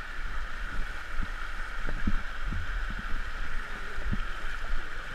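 Steady rush of a shallow gorge stream pouring over a rock cascade, with a few short low knocks.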